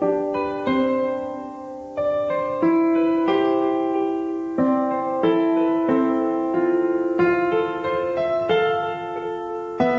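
Background music: a gentle solo piano melody, struck notes ringing on one after another.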